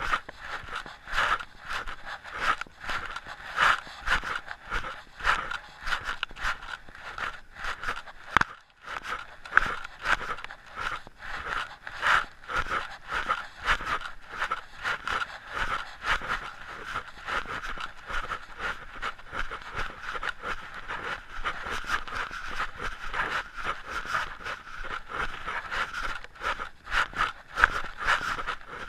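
A hiker's footsteps on a dirt forest trail, with clothing and gear rubbing close to the camera: a rhythmic scraping and rustling in time with the walking, dipping briefly about a third of the way through.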